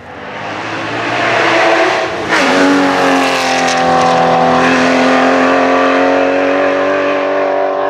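Racing car engine at full throttle as the car comes up the hill toward the microphone, growing louder, with a brief break about two seconds in like a gear change, then a strong, steady high-revving engine note held for several seconds.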